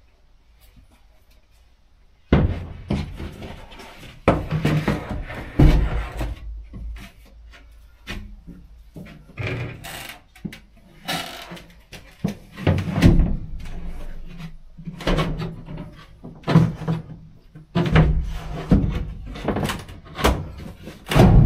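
Large plywood floor panel knocking and thudding against a van's steel cargo floor and body as it is fed in and laid down. It starts about two seconds in, with the heaviest thuds near the end.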